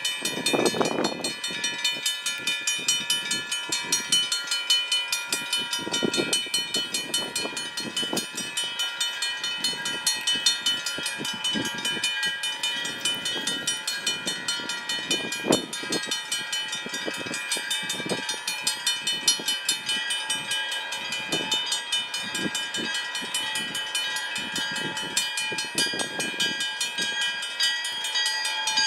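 Railway level-crossing warning bell ringing steadily with fast, even strokes while the crossing is activated for an approaching freight train. Occasional low gusts of noise swell underneath.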